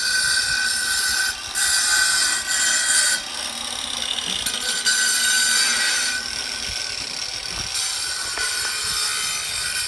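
Electric tile saw cutting stone veneer tile, a high-pitched whine that rises and drops away several times as the blade goes in and out of the stone.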